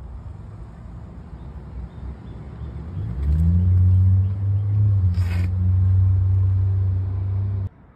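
Low outdoor rumble, then about three seconds in a low engine hum comes up, rising briefly in pitch, and holds steady. A short hiss about two seconds later, and the hum cuts off suddenly near the end.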